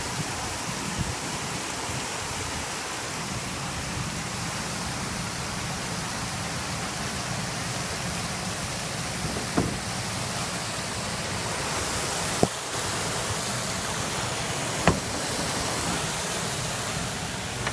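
A steady rushing hiss, like wind or moving water on the microphone, broken by three short sharp knocks about ten, twelve and a half and fifteen seconds in.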